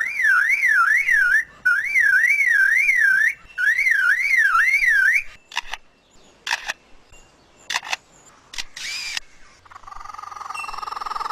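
Lyrebird mimicking a car alarm: a loud electronic-sounding wail sweeping up and down about three times a second, in three runs. It then imitates a camera shutter and motor drive as a scatter of sharp clicks and short whirs. Near the end a rising chattering call begins, the start of its kookaburra imitation.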